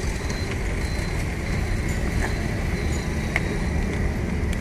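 Steady low rumble of background noise, with a few faint clicks of hands working the fittings inside a scooter's speedometer housing.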